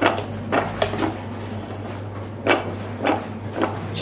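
Cut corn pieces being tossed in potato starch in a stainless steel mixing bowl: about six irregular knocks and clatters as the pieces and bowl are shaken.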